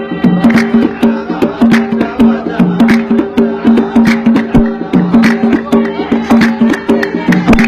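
Dan folk music: a melodic instrument repeating short held notes over a steady beat of sharp percussion strikes.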